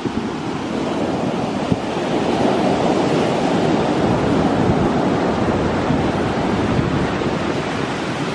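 Ocean surf breaking and washing up the beach, swelling louder about two seconds in, with wind buffeting the microphone.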